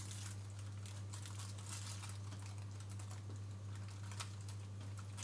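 Light, irregular taps and crinkles of plastic film lining a baking tray as hands press and adjust it around a soft, freshly poured mixture, over a steady low hum.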